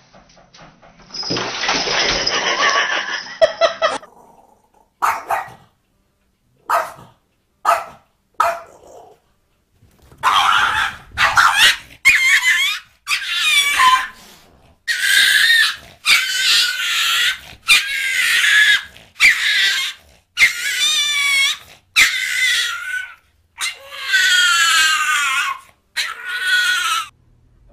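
A small dog and a cat scuffling: a harsh noisy stretch and a few short sharp sounds, then from about ten seconds in a string of high-pitched, wavering cries, each about a second long.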